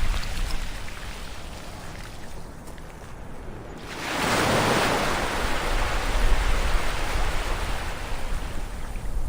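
Ocean waves washing on a shore: one wash ebbs away, then a new wave breaks about four seconds in and its surf slowly fades, over a low rumble of the sea.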